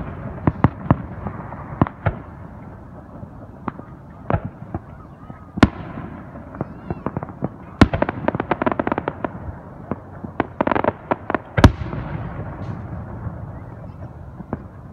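Aerial fireworks shells bursting: sharp bangs every second or two, the loudest about six, eight and twelve seconds in. Runs of rapid crackling pops come around eight to eleven seconds in.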